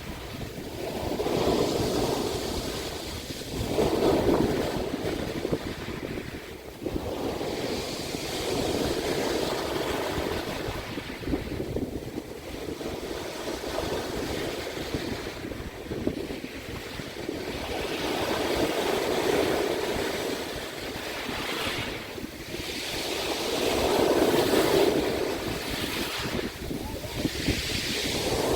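Sea waves breaking and washing up the shore, the rush swelling and falling back every few seconds.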